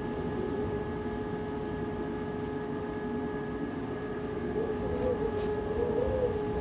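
Cyclone-force wind blowing hard, rumbling on the microphone, with a steady whistling howl running through it. From about two-thirds of the way in the wind grows a little louder and the howl wavers up and down in pitch.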